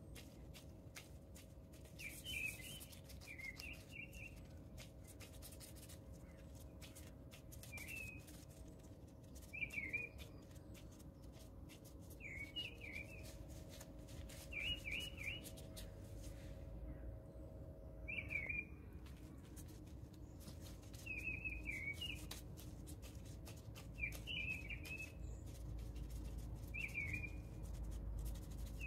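A small bird chirping in short quick phrases every two seconds or so, over faint soft clicks and squishes of a minced chicken mixture being pressed into rolls by gloved hands.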